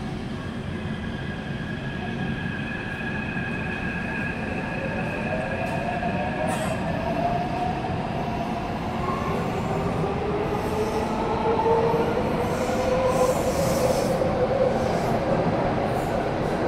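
Taipei Metro C371 train pulling out of a station. Its electric drive whines in several tones that rise in pitch from about five seconds in as it gathers speed, over steady wheel and track rumble.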